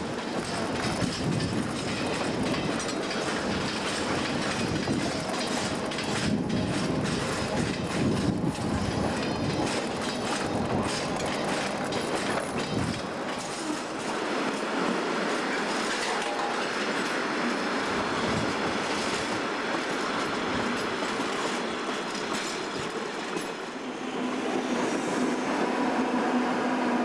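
Railway freight wagons rolling through a hump yard, steel wheels clattering over rail joints and points as a run of sharp clicks that thins to a steadier rumble. Near the end a diesel shunting locomotive's engine comes in as a louder steady hum as it draws close.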